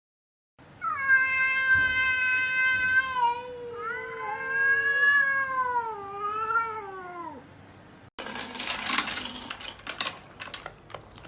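A cat yowling: two long drawn-out meows, the second sliding down in pitch at its end. About eight seconds in, this gives way abruptly to a run of clicks and rustling.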